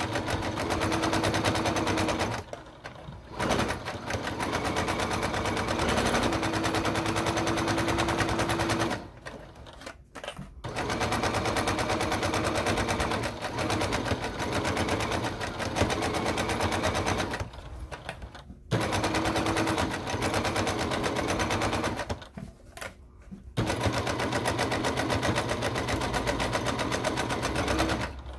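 Electric sewing machine stitching a seam through two layers of fabric, the needle's rapid rattle running in long stretches and stopping briefly four times.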